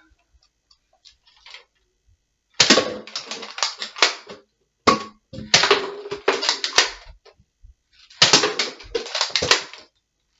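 Spring-powered Nerf Disruptor dart blaster being fired rapidly, three quick bursts of plastic clicks and clacks with a single click between the first two.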